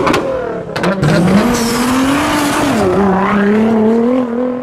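Car engine revving hard, with sharp exhaust pops in the first second; the engine note climbs, dips briefly about three seconds in, then holds.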